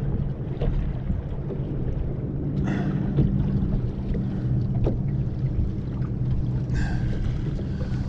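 Steady low hum with wind rumble on the microphone, broken by two short noises about a third of the way in and again near the end.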